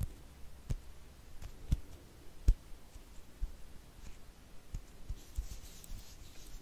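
Soft, irregular taps and thuds of fingertips and hands brushing close to the microphone and camera. About five seconds in, a light brushing rustle joins them.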